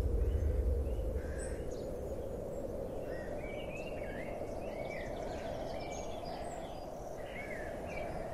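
Outdoor ambience: a steady background hiss with birds calling in short, repeated chirps from about three seconds in, as the tail of a music track fades out in the first second.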